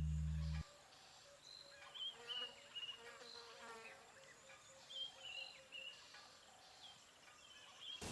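Faint bush ambience: small high chirping calls repeat every second or so over insect buzzing. A low ringing tone cuts off suddenly about half a second in.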